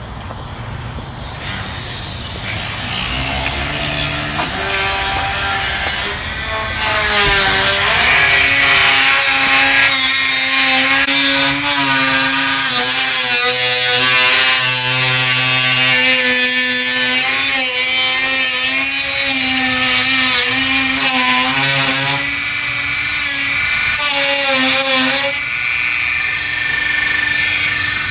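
Dremel rotary tool with a cutoff wheel cutting through a plastic bumper valance: a high whine that wavers in pitch as the wheel bites and is eased off. It starts a few seconds in, dips briefly a couple of times and eases off near the end.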